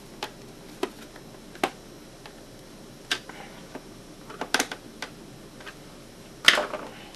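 Irregular sharp clicks and light knocks of a plastic multimeter case and small screws being handled while the meter's back is screwed shut, with one louder knock about six and a half seconds in.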